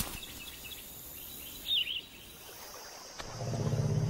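Quiet outdoor nature ambience with faint, high bird chirps, one clearer short chirp just before two seconds in. A little after three seconds a low steady hum sets in.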